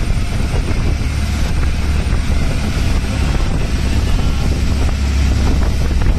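Steady low rumble of a tow boat's motor running under way, with wind buffeting the microphone.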